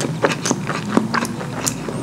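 Close-miked chewing and mouth sounds of someone eating saucy curry food: irregular wet smacks and sticky clicks, several a second.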